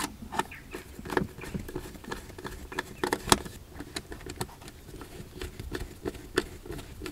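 Hands plugging cable connectors into a car amplifier: irregular light clicks and taps of plastic and wire, with one sharper click a little over three seconds in.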